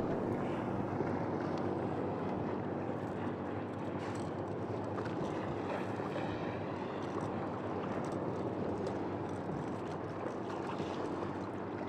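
Choppy sea washing and sloshing against a kayak's hull as side-on waves roll under it, a steady wash of water with some wind on the microphone.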